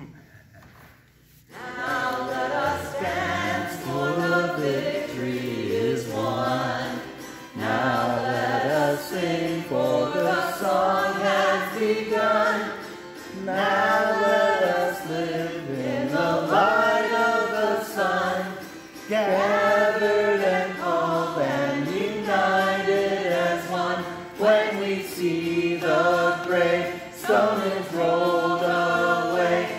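A single voice singing a hymn to a strummed autoharp, coming in about a second and a half in.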